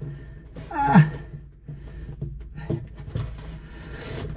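A man's strained grunt about a second in, then faint clicks and a breathy exhale near the end, over a steady low hum.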